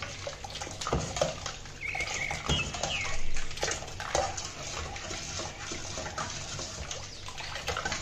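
A ladle stirring a watery sattu drink with crushed ice in a stainless steel bowl: liquid sloshing with scrapes and clinks against the metal. A bird chirps a few times in the background about two seconds in.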